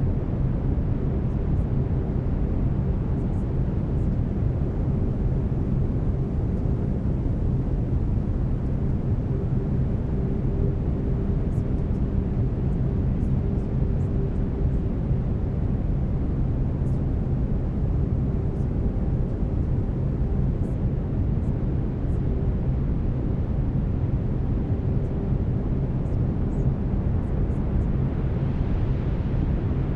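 Steady brown noise, a deep hiss strongest in the low end, with faint steady low tones of binaural beats under it.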